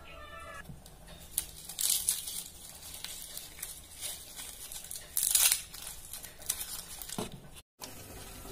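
Dry, papery onion skin being peeled and torn off by hand: scattered crinkling and tearing, with two louder rips about two seconds and five seconds in.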